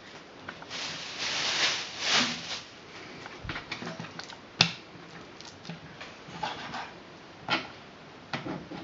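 A kitchen knife cutting raw white fish fillet on a wooden chopping board. There are two noisy swishes about a second in, then a sharp knock of the blade on the board about halfway, and a few lighter knocks near the end.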